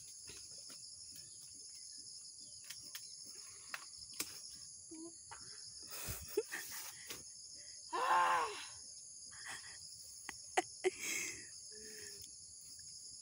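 Steady high-pitched chirring of insects, with a short voice call about eight seconds in and a few sharp clicks and snaps scattered through.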